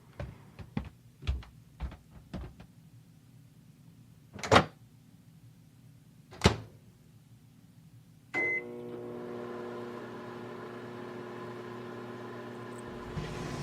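Several light taps and clicks, then two sharp thumps, then a microwave oven beeps once and starts running with a steady hum.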